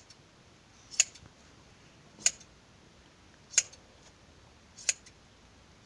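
Hand shears snipping through a goat's long hair during shearing. A sharp metal snip comes about every 1.3 seconds, with near quiet between.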